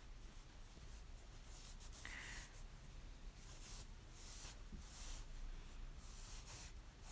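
Faint rustle of sashiko-stitched cloth being handled and turned: a series of short, irregular swishing strokes.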